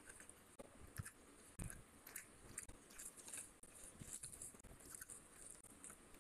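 Faint close-miked eating sounds: a stream of small, irregular wet clicks and squelches as a hand squeezes a lemon and mixes rice with fish curry, along with chewing.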